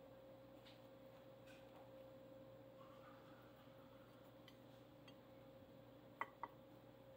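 Near silence: room tone with a faint steady hum, broken near the end by two sharp clicks about a quarter second apart.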